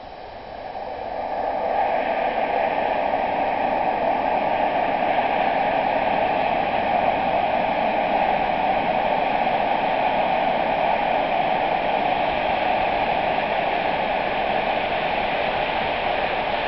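Steady roar of the steam locomotive Tornado, an LNER Peppercorn A1 three-cylinder Pacific, working hard as it approaches, its fast exhaust beats run together into one continuous rushing sound that swells up about a second in and then holds level.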